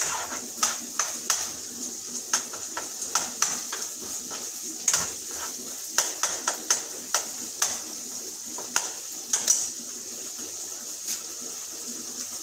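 Metal utensil clinking and scraping against a pan, many irregular taps, over a steady high sizzle of ground beef browning.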